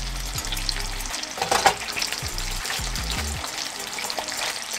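Beans and spinach sizzling in a hot stainless frying pan, freshly hit with lemon juice, as the pan is stirred and tossed, with a few sharp clicks of the pan and utensil.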